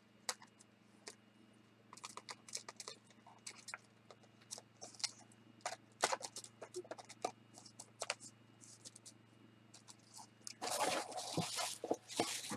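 Paper and product packaging rustling and crinkling as items are handled and taken out of a box, with scattered light clicks and taps. A louder, denser rustle comes near the end.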